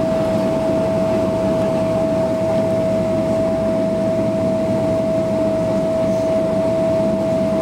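Cabin noise inside a Boeing 777-300ER taxiing onto the runway: a steady rumble from the plane, with a single steady whine above it.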